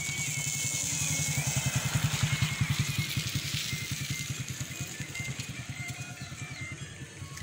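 Motorcycle riding past, its engine's rapid pulsing growing louder to a peak about two seconds in, then fading away.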